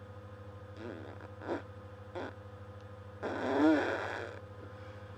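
A girl making a silly, breathy mouth noise, a raspberry-like sound with a wavering pitch about three seconds in that lasts about a second, after a few short quieter noises. A steady low hum runs underneath.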